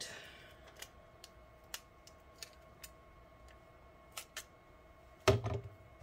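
Small clicks and crinkles of a strip of adhesive tape being torn off and handled, with a brief tearing sound at the start and a louder knock near the end.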